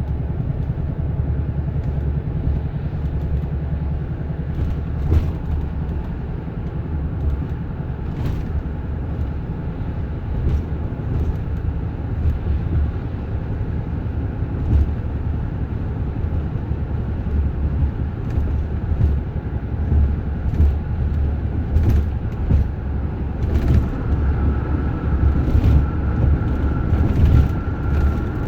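2010 Honda Odyssey on the move, heard from the cabin: a loud low drone with a throbbing, uneven level and a few scattered knocks. A faint high steady tone comes in during the last few seconds. This is the rear brake noise the owner describes as a slight thumping, which the dealer put down to a seizing right rear brake caliper.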